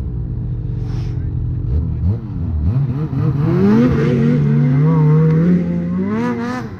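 Ski-Doo Backcountry X-RS snowmobile engine running at a low steady speed, then revving up hard about three seconds in as the sled pulls away. It holds high revs for a couple of seconds, then drops away near the end.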